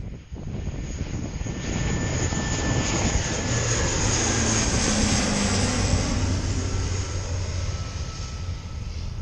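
Lockheed C-130 Hercules four-engine turboprop making a low fly-past. The engine and propeller noise builds, is loudest about halfway through, then eases as it passes, with a high whine that slowly drops in pitch.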